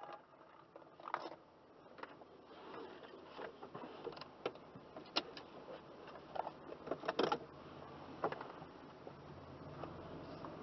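Irregular clicks and knocks of handling inside a parked car's cabin, like keys and fittings being moved, over a faint low background rumble.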